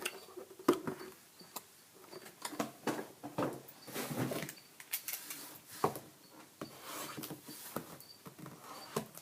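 Cardboard trading-card boxes being handled and opened by hand: irregular scratching, sliding and tapping of cardboard with small sharp clicks.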